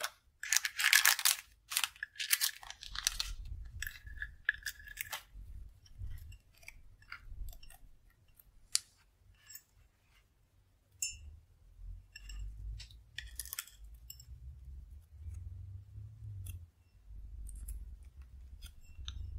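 A small plastic bag of stickers crinkling as it is handled and pulled from a metal tin, loudest in the first few seconds and again briefly past the middle. In between come sparse light clicks and taps of round paper stickers and the tin being handled.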